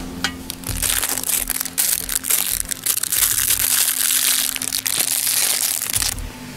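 A thin plastic wrapper crinkling loudly as it is torn open and handled close by. It starts just under a second in and stops abruptly at about six seconds.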